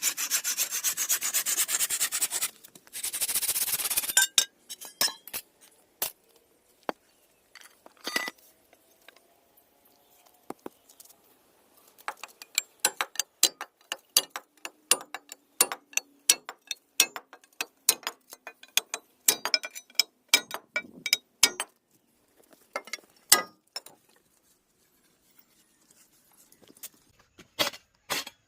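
Wood being rasped or filed in rapid, continuous strokes for about the first four seconds, as a wooden spade handle is shaped. After that come scattered sharp taps and knocks on wood, more frequent in the middle stretch.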